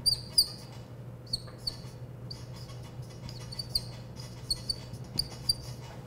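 Whiteboard marker squeaking against the board as letters are written: a string of short, high squeaks in small clusters, over a steady low hum in the room.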